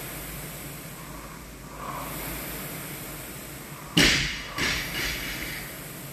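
Air rowing machine's fan flywheel whooshing, swelling and fading with each rowing stroke. About four seconds in, a loud bang followed by two smaller knocks.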